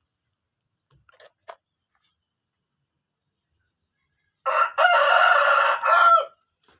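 Rooster crowing once, a loud cock-a-doodle-doo starting about four and a half seconds in and lasting nearly two seconds.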